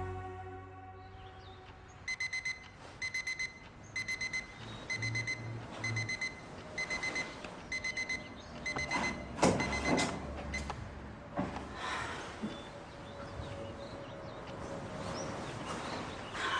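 Bedside alarm clock beeping: quick groups of four short high beeps, about one group a second, stopping about nine seconds in. Then a few sharp knocks and rustles, the loudest of them just after the beeping stops, and softer rustling.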